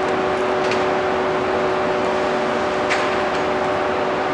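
Modified 485-series electric train rolling slowly in: a steady hum over an even rushing noise, with a few faint clicks.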